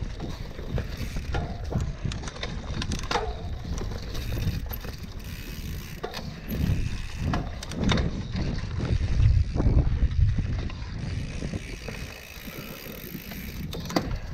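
Mountain bike ridden over a forest dirt trail: tyres on the ground and the bike's chain and parts rattling and clicking over bumps, over a heavy low rumble that swells in the middle.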